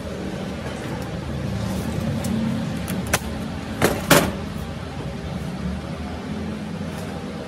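Steady low mechanical hum that swells slightly through the middle, with three sharp clicks just past halfway.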